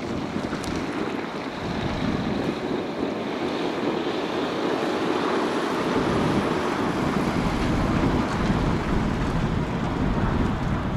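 Boeing 747 jet engines at takeoff power: a steady, heavy roar that grows gradually louder.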